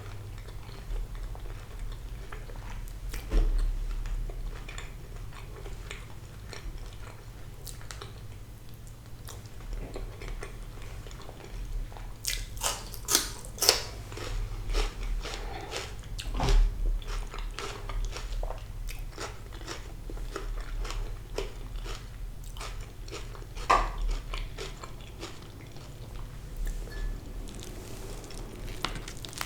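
Close-up eating sounds: a person biting and chewing crispy, slightly burnt fried sea bass, with repeated crunches and wet chewing. Bursts of crunching come about 3 s in, from about 12 to 14 s, at about 16 s and at about 24 s.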